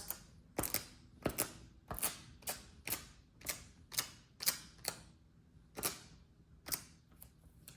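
Dust-removal sticker dabbed again and again onto an iPad's glass screen to lift stubborn dust, each dab a sharp tacky tap as it meets and pulls off the glass, about two a second with a brief pause partway.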